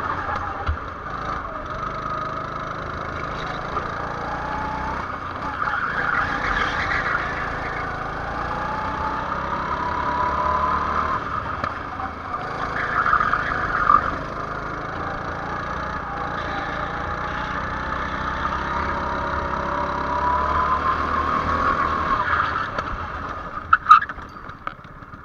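Go-kart engine running hard around a track, its pitch rising on the straights and falling back into the corners. About a second before the end come a couple of sharp knocks as the kart rides up onto the kerb, then the engine note drops away.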